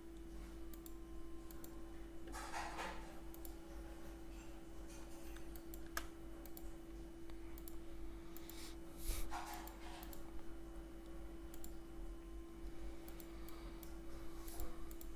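Faint, scattered computer mouse clicks over a steady electrical hum and room noise.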